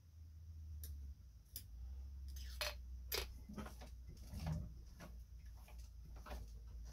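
Faint, scattered small clicks and taps from hands working on a vintage class 15 sewing machine and its oil bottle while it is oiled drop by drop, over a low steady hum.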